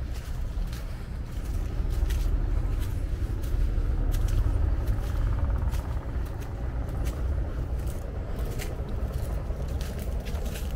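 Footsteps on leaf-strewn stone steps and a paved path, with dry leaves crunching underfoot in short irregular ticks, over a steady low rumble that swells for a few seconds near the middle.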